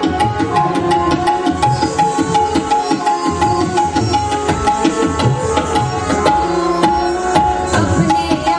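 Indian classical music for kathak dance: tabla playing a quick, steady rhythm of strokes under held melody notes.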